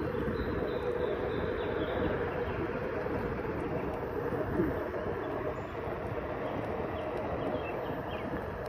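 Onewheel Pint rolling over concrete: the steady rumble of its single fat tyre on the pavement, with a steady hum from the hub motor.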